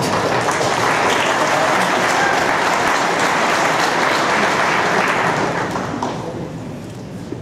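Audience applauding, steady and then dying away about six seconds in.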